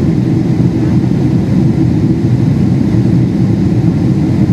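Steady, loud cabin roar inside a Boeing 777-300ER in flight on approach, heard from a window seat: the GE90 engines and airflow over the wing, its flaps extended, make an even low rumble.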